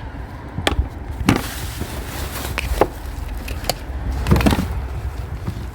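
Scattered knocks and clanks of discarded scrap being handled and moved, with a quick cluster of knocks about four and a half seconds in, over a steady low outdoor rumble.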